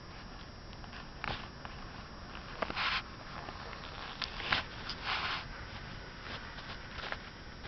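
A man making short breathy, hissing sniff-like noises: about five separate bursts at uneven gaps, the longest near three seconds and five seconds in.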